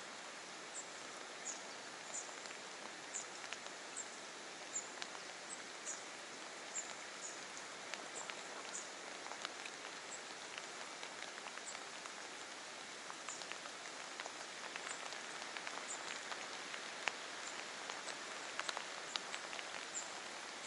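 Steady hiss of water, with a small bird repeating short, high chirps about once a second and a few sharp ticks near the end.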